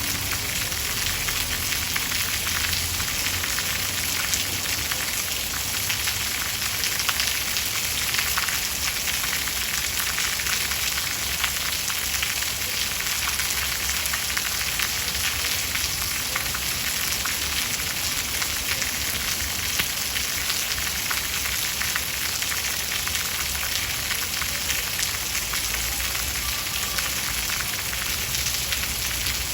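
Steady rain: an even, dense hiss of many drops with a fine crackling patter.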